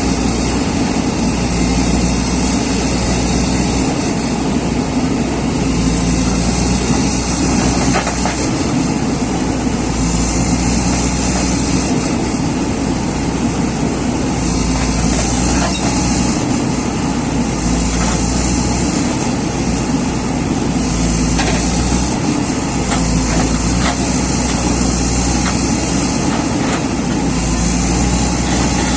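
A JCB excavator's diesel engine runs steadily under working load, its low rumble swelling and easing every few seconds as the machine digs and loads. A few faint knocks come through.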